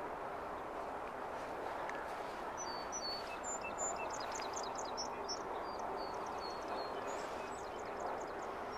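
Birds chirping and trilling in short, high calls from a couple of seconds in until near the end, over a steady background hiss.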